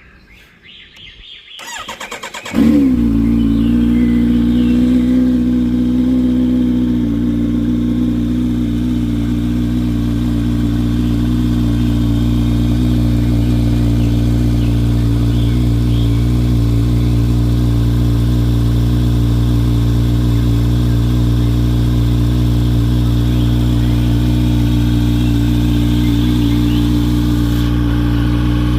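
Kawasaki Z900 inline-four motorcycle engine cold-started: the starter cranks for about a second, the engine catches about two and a half seconds in, wavers briefly, then settles into a steady idle.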